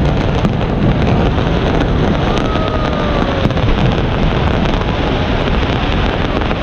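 Fireworks display booming in a continuous low rumble, with a few sharper bangs standing out.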